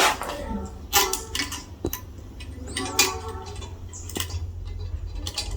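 Sharp metallic clinks and taps, about five spaced irregularly, some ringing briefly, from tools and hardware as a toilet bowl is bolted to its tank, over a steady low hum.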